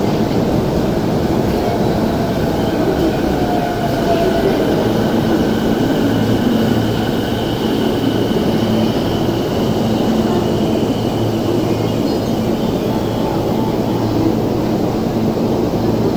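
JR E233-series electric train running at the station: a steady loud rumble with a high electric whine held through the middle, and a short rising tone a few seconds in.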